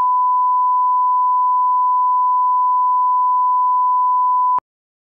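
Steady, pure line-up test tone that plays with broadcast colour bars, one unchanging pitch, cutting off abruptly with a faint click near the end.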